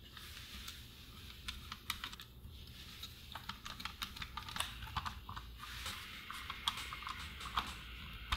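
Quiet, scattered small clicks and taps of a transistor radio being put back together: a screwdriver working a screw into the chassis, then the plastic back cover fitted and pressed into place. The clicking comes more often in the second half.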